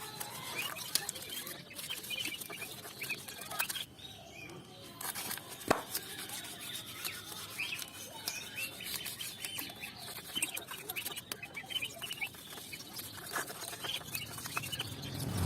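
Birds chirping in the background, with scattered light clicks and taps.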